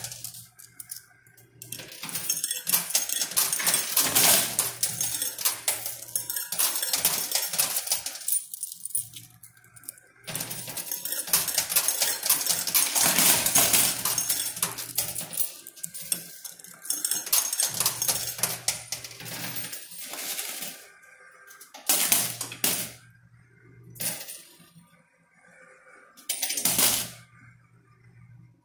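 Quarters clattering and clinking in a coin pusher machine in long runs, then three short bursts of clinking near the end, with a low hum under the louder runs.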